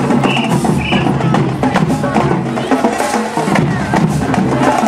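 Drill team's marching percussion playing: drums and rapid woodblock-like clicks in a dense, driving beat, with two short high-pitched tones near the start.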